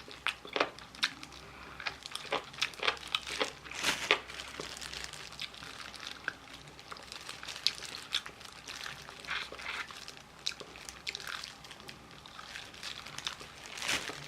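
Crunching and crackling from eating crispy Korean fried chicken up close. Short sharp crackles come thick for the first few seconds, then more scattered.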